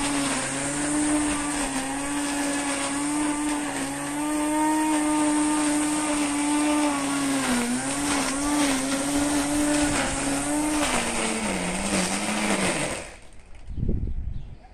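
Electric string trimmer motor running steadily with a high hum while cutting grass, its pitch dipping briefly as the line bites in. It slows with a falling pitch and stops about 13 seconds in, followed by a short low thump.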